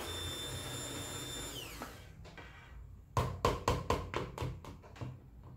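Hand-held immersion blender running in a cup of thick, hot conditioner emulsion, then switched off, its whine falling in pitch as it winds down about two seconds in. About a second later comes a quick run of sharp knocks.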